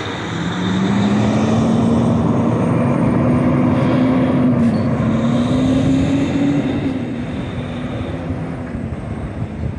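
Semi-truck with a flatbed trailer driving through a tight turn and pulling away: the diesel engine runs with a low drone that slowly rises in pitch, over tyre and road noise.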